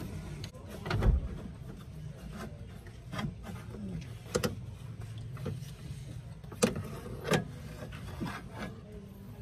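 A cloth rubbing on an A/C hose fitting, then scattered knocks and clicks of hands and tools handling parts in a van's engine bay, the loudest a dull thump about a second in, over a low steady hum.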